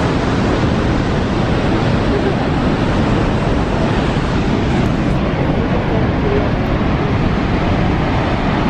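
Niagara's Horseshoe Falls: a steady, loud rush of falling water.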